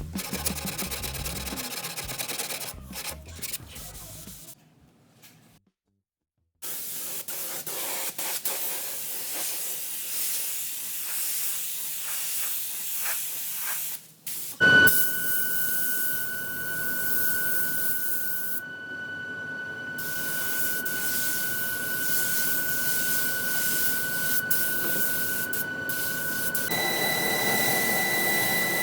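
Compressed-air paint spray gun hissing in several short bursts, with a brief silent gap. In the second half a steady high whistle runs over the hiss and jumps to a higher pitch near the end.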